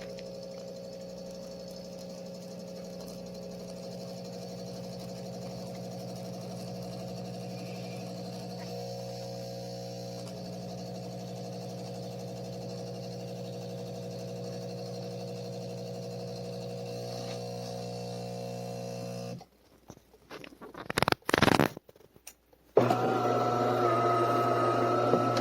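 De'Longhi Magnifica Start automatic espresso machine working through a latte cycle: a steady pump hum that stops about two-thirds of the way in. A few clicks follow, then a louder whining motor starts near the end.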